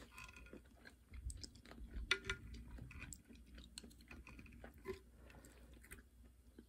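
A person chewing gambas al ajillo quietly, with scattered small clicks of a fork and chopsticks against the metal pan, the loudest about two seconds in.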